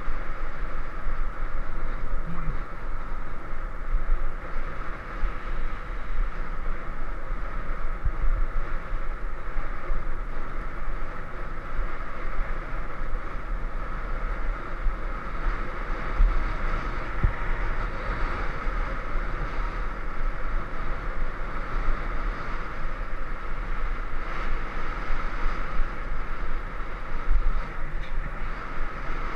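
Wind rushing over the microphone of a camera mounted on a moving bicycle, with a low, fluttering rumble, and the steady hum of the tyres rolling on a concrete road beneath it.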